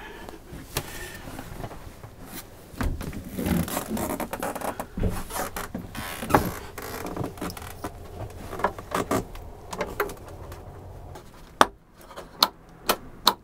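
Hands working wires and connectors behind a cabinet panel: rustling, scraping and small knocks. Near the end a rocker switch clicks sharply, several clicks about twice a second, as it is flicked on and off.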